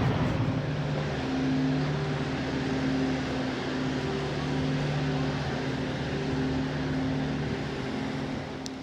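An engine idling at a truck stop: a steady low hum with a few held tones, easing off slightly near the end.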